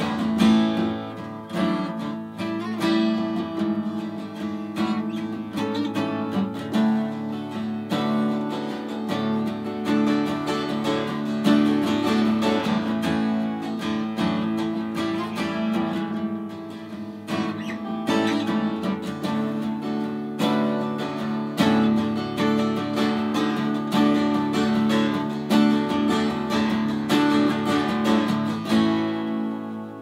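Two acoustic guitars playing together, strummed steadily, with no singing. About a second before the end the playing stops and a last chord rings out and fades.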